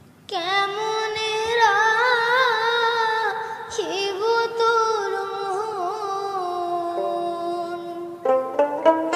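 Background music that starts a moment in: a melody of long, wavering held notes, with a brief break partway through, joined near the end by quick plucked string notes.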